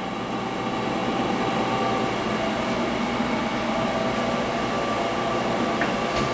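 Hydraulic CNC press brake running through a 90-degree bend in 12-gauge sheet: a steady machine hum with several fixed tones, a little louder from about a second in.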